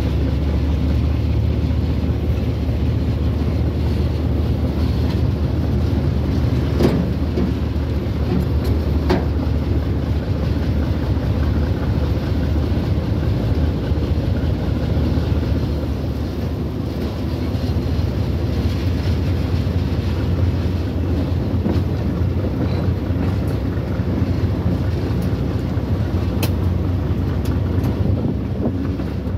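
Train running along the track, heard from on board: a steady low rumble of wheels on rails, with a few sharp clicks.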